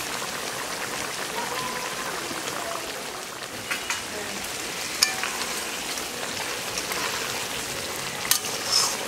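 Prawn curry in coconut milk sizzling steadily in the pan as it finishes cooking, with a few light clicks of a utensil against the pan.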